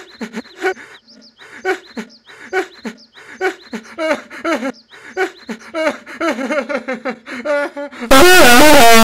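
A puppet's cartoon voice cut into short wordless syllables that repeat about twice a second, edited like a stutter loop and swooping more in pitch from about halfway. About eight seconds in, a sudden very loud, heavily distorted blast cuts across it.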